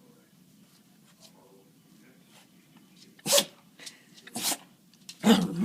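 Dog sneezing three times in a row, short sharp bursts about a second apart, part of a sneezing fit that the owner puts down to allergies.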